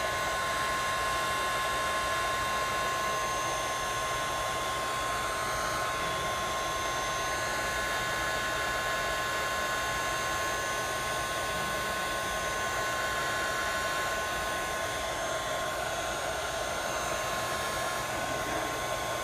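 Heat gun running steadily while heating a Galaxy S5's screen glass: a constant airy rush of the fan with a thin steady whine.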